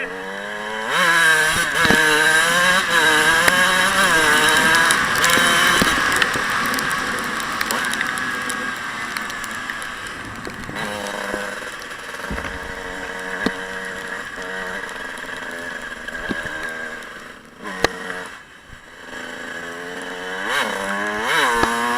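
Dirt bike engines revving up and down repeatedly as the bikes ride off road, with the revs rising and falling every second or so. The engine note drops away briefly about three-quarters of the way through, then revs climb again near the end.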